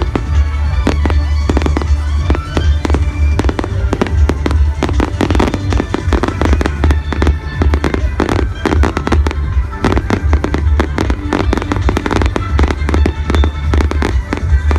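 Fireworks display: a rapid, continuous run of bangs and crackling from bursting shells, over loud music played with the show.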